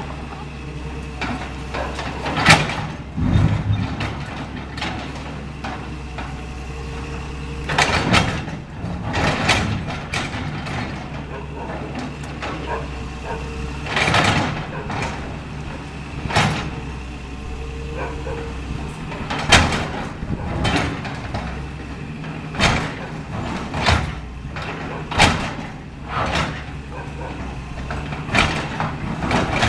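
Caterpillar 325L excavator's diesel engine running steadily, with repeated crashes and scrapes of breaking concrete and falling debris as the machine tears into a building.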